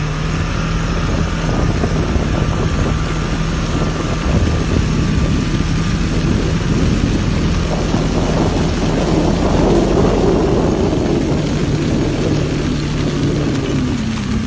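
A vehicle engine runs steadily, with a rushing noise of ice breaking off power lines and falling that builds and is loudest about two-thirds of the way through.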